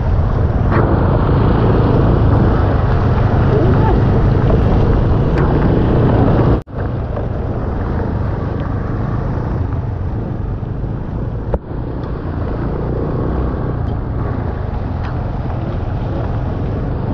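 An engine running steadily, with wind buffeting the microphone. The sound drops out abruptly for an instant about six and a half seconds in.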